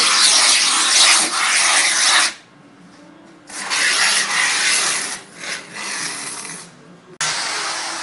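Aerosol can of polyurethane expanding foam spraying with a loud hiss in two long bursts, separated by a short pause, as foam is filled into gaps in a camper wall. Near the end a different steady machine noise starts abruptly.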